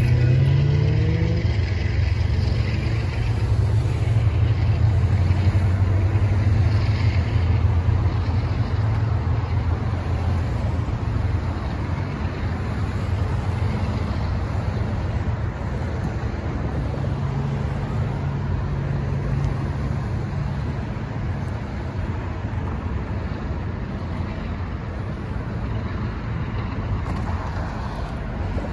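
Road traffic: cars and a pickup driving over the railroad crossing as the gates come up, one engine revving up as it pulls away at the start. The steady traffic noise slowly fades.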